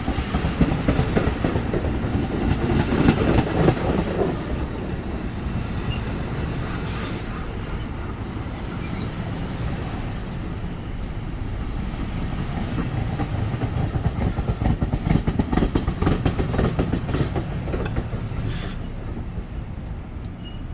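A passenger train rolling past, with a steady rumble and its wheels clicking rapidly over the rail joints. A few brief high-pitched hisses rise above it.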